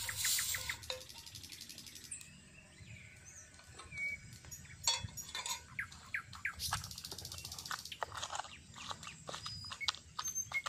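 Wooden pestle pounding a roasted tomato in a wooden mortar: a run of dull knocks that grows busier about halfway through, with birds chirping in the background.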